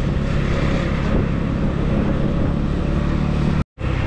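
Steady running noise of a delivery scooter riding through city street traffic, with a brief dropout to silence near the end.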